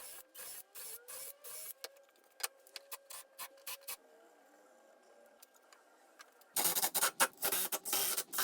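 Power drill driving screws into wood in short bursts, its motor whine rising as it spins up. After a brief pause, a louder stretch of rough workshop noise follows near the end.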